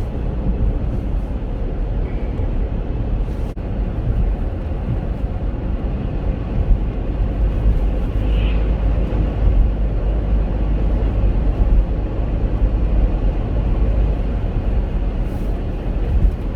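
Steady low rumble of tyre, road and engine noise inside the cabin of a Chevrolet Captiva driving on snow-covered roads, with a faint click about three and a half seconds in.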